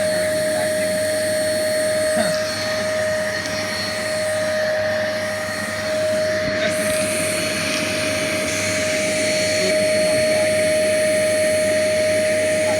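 Kärcher WD 3 P wet/dry vacuum cleaner running: a steady motor whine over rushing air, dipping slightly in loudness for a few seconds in the middle.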